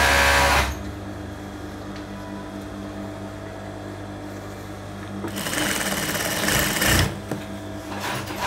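Industrial sewing machine stitching at speed, stopping abruptly about half a second in; a quieter steady hum carries on after. From about five seconds in there are a couple of seconds of fabric rustling as the cloth is moved at the machine, then a few light clicks near the end.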